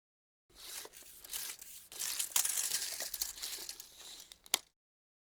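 Tape measure's steel blade rasping as it slides through the case for about four seconds, with small clicks throughout and one sharp click near the end before it stops suddenly.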